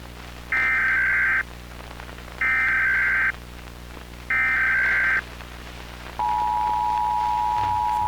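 Emergency Alert System tones: three roughly one-second bursts of SAME digital header data, about two seconds apart. The steady two-tone EAS attention signal begins about six seconds in.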